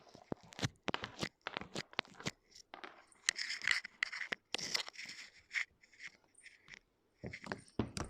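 Thick slime being squeezed and poked by hand, making a quick run of sticky clicks and crackly pops.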